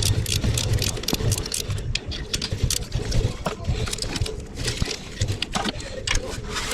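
Irregular metallic clicks and clanks of hand tools and parts being handled during engine work, several a second, over a low rumble.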